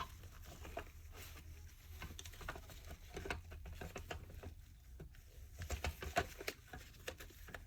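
Plastic parts of a Dyson vacuum cleaner head being handled and worked apart: scattered small clicks and taps, with a quick run of louder clicks about six seconds in.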